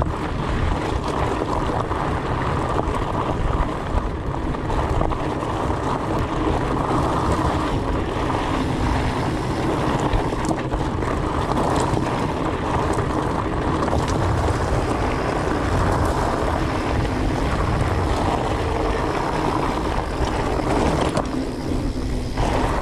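Fat bike riding rocky desert singletrack: its 4.8-inch Maxxis Colossus tyres rolling over gravel and stones make a steady rolling rumble, mixed with wind buffeting the camera microphone.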